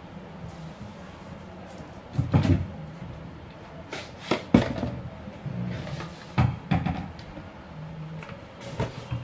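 Kitchen handling sounds: about five separate knocks and clunks as things are picked up, opened and set down, among them a plastic storage container.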